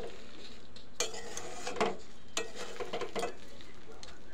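Spoon stirring thick, sticky jujube pickle in a metal karai, clicking and scraping against the pan five or six times, over a faint sizzle of the pickle cooking down.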